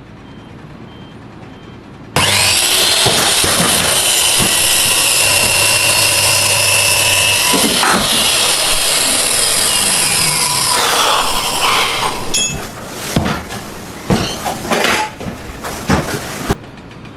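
A power tool cutting: a loud, steady, hissing noise starts about two seconds in, then breaks into short, uneven bursts for the last few seconds.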